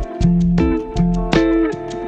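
Background music led by plucked guitar, with bass notes and a steady beat.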